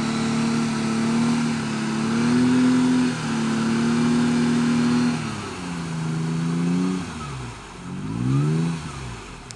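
Toyota FJ Cruiser's 4.0-litre V6 engine working under load as the truck crawls through a muddy water hole. The revs hold steady, climb and drop several times, then rise and fall once more briefly near the end before fading away.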